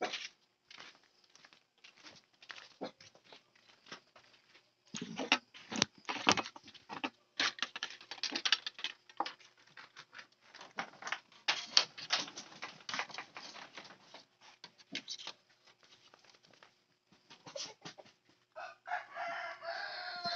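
Irregular clicks and knocks through the middle, then a rooster crowing once near the end: one long call that falls away at its tail.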